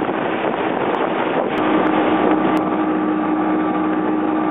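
Twin outboard motors running the boat at speed, with rushing water and wind on the microphone. About a second and a half in, a steady engine hum at a fixed pitch comes through more clearly over the noise.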